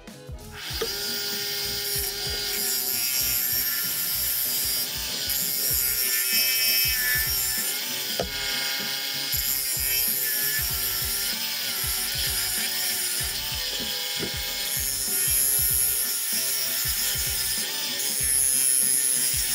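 A gouge cutting into a spinning wooden plate blank on a lathe, turning down the face: a continuous rough shearing hiss as long shavings peel off. It begins about a second in.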